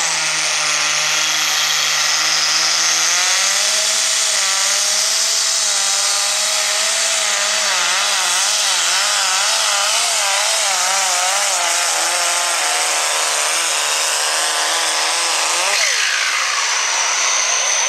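Light super stock pulling tractor's engine running flat out under load as it drags the weight-transfer sled. Its pitch wavers rapidly through the middle of the pull and falls away near the end.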